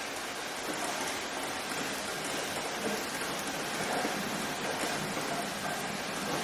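Steady rainfall, an even hiss of many drops falling without a break.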